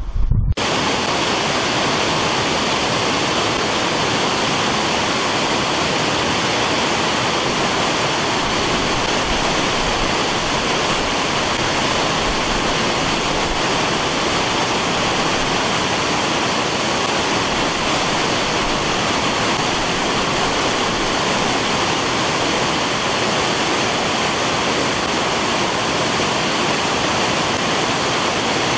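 Floodwater of a swollen river rushing and pouring through a trash screen clogged with branches and debris, a steady roar of falling water that cuts in suddenly about half a second in.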